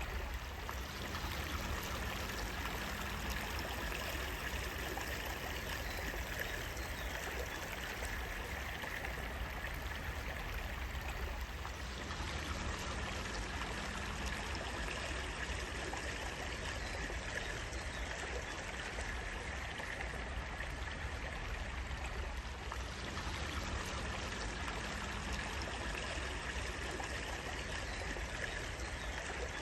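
Running water of a stream flowing steadily, an even continuous wash of water noise.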